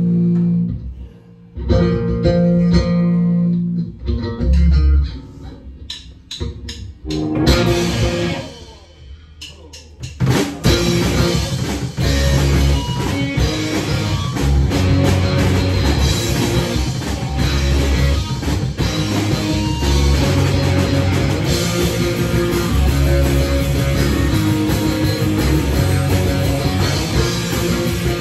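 Electric guitars playing a few low, ringing notes with pauses, then about ten seconds in the full band comes in: drum kit, electric guitars and bass playing a loud rock song, instrumental with no singing.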